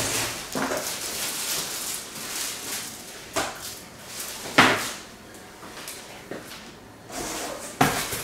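Packing being handled in a cardboard box: plastic-wrapped chair parts and foam sheets rustle, broken by a few sharp knocks and thumps, the loudest about four and a half seconds in.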